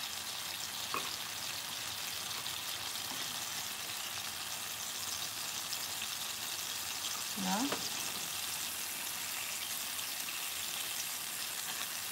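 Soy sauce mixture with chicken thighs and spinach sizzling steadily as it reduces in a stone-effect nonstick frying pan. A brief low pitched sound about seven and a half seconds in.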